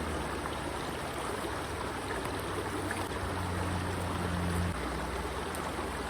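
Steady rush of flowing water, with a low steady hum underneath that stops about three-quarters of the way through.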